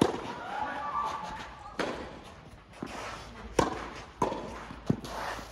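Tennis ball being struck by rackets and bouncing during a doubles rally: about six sharp pops spread unevenly over five seconds.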